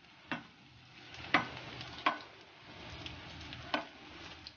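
Bondas deep-frying in hot oil in a shallow pan, a steady sizzle, with a slotted spatula knocking against the pan four times as the fritters are turned.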